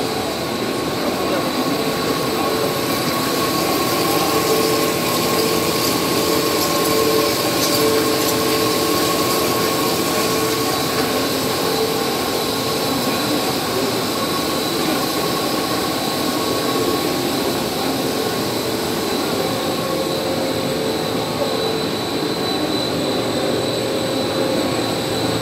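Steady mechanical running noise of a Wintech cast stretch film production line in operation, with a few constant high tones over a dense hum and hiss.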